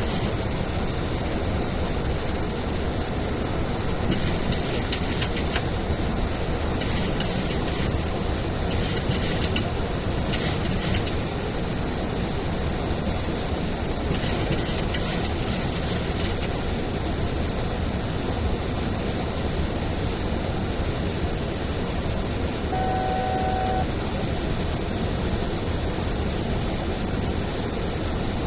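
Steady cockpit noise of a Boeing 737-800 in descent: an even rush of airflow and engine drone. Short crackly patches come several times in the first half, and a single short electronic tone sounds once, about a second long, roughly two-thirds of the way through.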